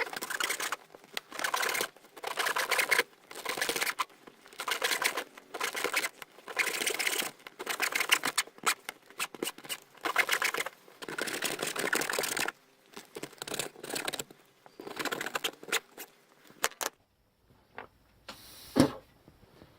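Small hacksaw cutting through a piece of wood, about one rasping stroke a second, then a few shorter strokes as the cut finishes. A single sharp knock near the end.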